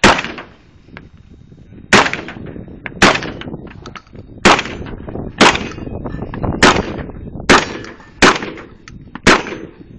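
A string of nine gunshots from a competition shooter, spaced about a second apart but unevenly, each with a short echo trailing it.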